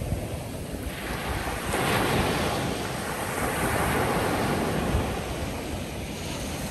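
Ocean surf washing onto a sandy shoreline: a wave swells about a second in, breaks and washes up the beach, then eases off near the end.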